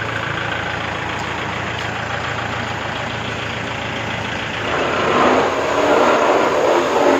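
Kubota L4508 tractor's diesel engine idling steadily, getting louder and rougher from about five seconds in.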